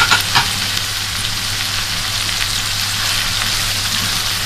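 Sausage, onions, peppers and freshly added tomatoes sizzling steadily in a frying pan, with a few clicks of a stirring utensil against the pan near the start.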